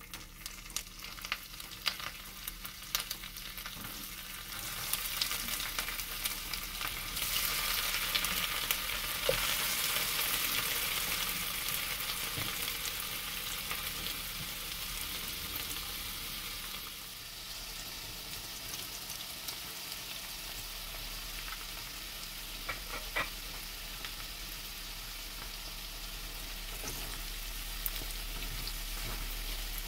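Cubes of tempeh frying in hot oil in a frying pan. As the pieces are dropped in, small crackles and pops start up; the sizzle then swells to a loud hiss and settles into a steady fry. Near the end a spatula stirs the pieces.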